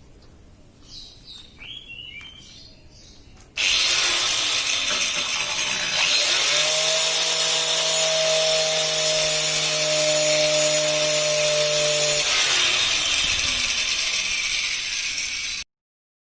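Homemade table saw running, starting abruptly a few seconds in with a loud, steady whir. From about six to twelve seconds in the blade cuts into wood, adding a steady hum, and the sound cuts off suddenly just before the end.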